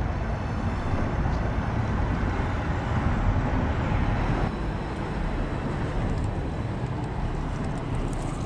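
Steady outdoor noise with a deep, fluctuating rumble and no distinct events, the kind left by wind on the microphone or road traffic.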